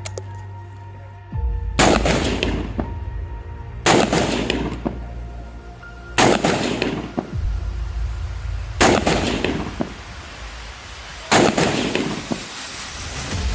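Colt M4 carbine firing 5.56×45 mm NATO rounds in semi-automatic: five single shots, evenly spaced about two and a half seconds apart, each trailing off in an echo.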